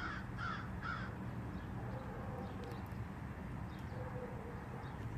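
A bird calling, three quick calls about half a second apart in the first second, over a steady low hum.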